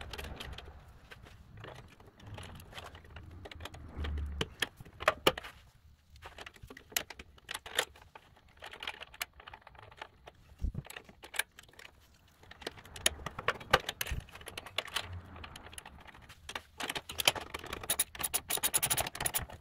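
Metal parts clinking, tapping and rattling as the shifter linkage is fitted back onto the riding mower's transmission, with a few dull knocks. Near the end comes a run of rapid clicking from a socket wrench tightening the linkage nut.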